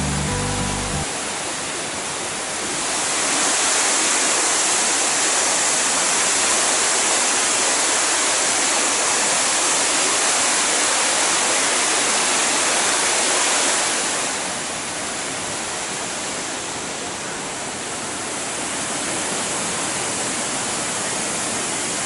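Mountain waterfall cascading over several rock steps into narrow pools: a steady rushing roar that swells louder about three seconds in and eases back down about fourteen seconds in. A short piece of music cuts off about a second in.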